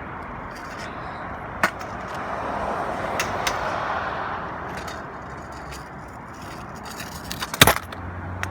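Kick scooter wheels rolling over pavement with a steady rushing sound, broken by a few sharp clicks and a loud clatter about three-quarters of the way through, typical of a trick landing or the deck hitting the ground.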